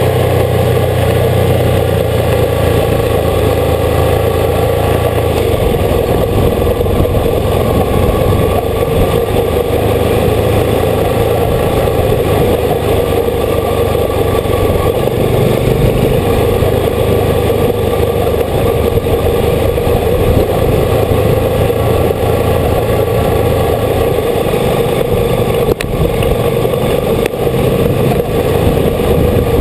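Old motorcycle engine running steadily under way, heard close from the bike itself.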